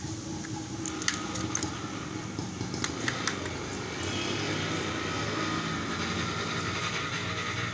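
Small metal clicks and taps of a screwdriver on the screws of a digital kitchen scale's load cell, a few about a second in and again around three seconds in, as loose mounting screws are tightened. A steady mechanical drone runs in the background.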